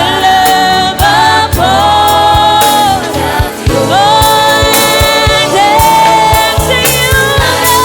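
Gospel worship music: voices singing long held lines over a band with bass and a steady drum beat.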